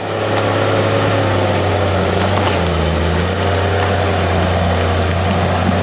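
Heavy vehicle engine running steadily at a constant low pitch, starting abruptly.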